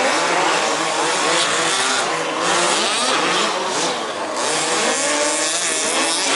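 Several 1/5-scale petrol remote-control off-road buggies, their small two-stroke engines revving up and down as they race around the track. The engines' pitches rise and fall and overlap continuously, the cars throttling on and off through corners.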